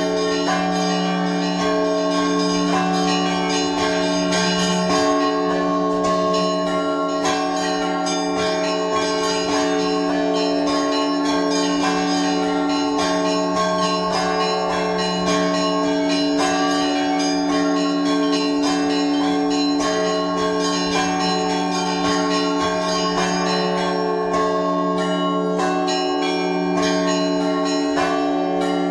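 Orthodox church bells ringing the Easter peal: several bells of different pitches rung together without a break, a low bell's steady hum under a shifting mesh of higher bell tones.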